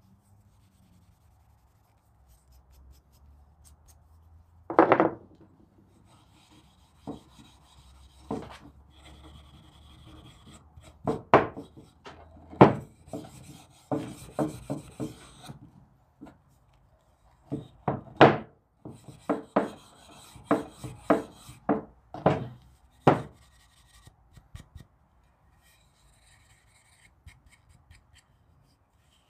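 Hand-tool work on wood: a series of short, sharp scraping strokes at irregular intervals, with pauses between groups of strokes.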